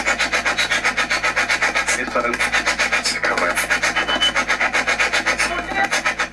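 A spirit box sweeping through radio stations, giving fast, even chops of static and radio fragments at about eight a second. It cuts off suddenly at the very end.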